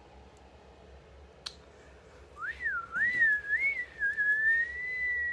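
A person whistling through pursed lips: a few quick notes wavering up and down, then one long steady high note.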